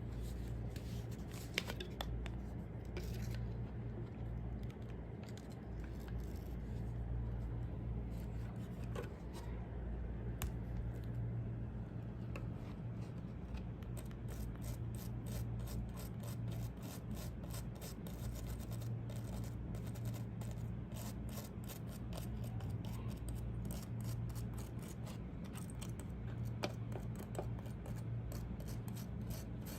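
Small clicks, scratches and rubbing from hands working on desktop computer hardware, coming thicker and faster in the second half, over a steady low hum.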